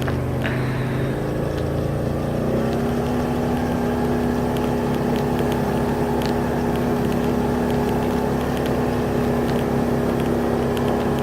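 ATV engine running under way, its note rising about two and a half seconds in and then holding steady.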